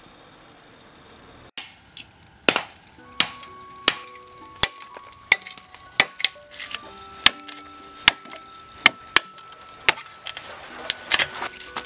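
Machete blade chopping into a green bamboo stalk: sharp, cracking strikes about every 0.7 seconds, starting about a second and a half in. Soft background music with held notes plays under the strokes.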